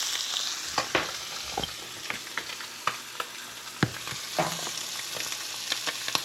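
Spanish mackerel fillets frying in melted butter in a pan: a steady sizzle with scattered pops and crackles.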